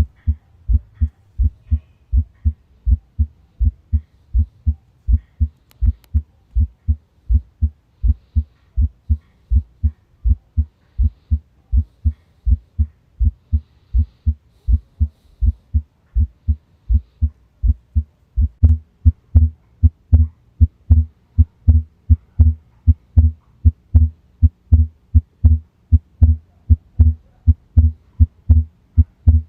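Recorded heart sounds of the kind heard through a stethoscope on the chest: a steady, regular heartbeat of low dull beats, growing louder about eighteen seconds in.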